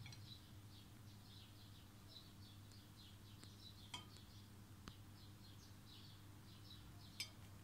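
Near silence: a steady low hum, with a small bird chirping faintly in a long run of short, repeated chirps, about three a second. A few faint clicks come through, one about four seconds in and one near the end.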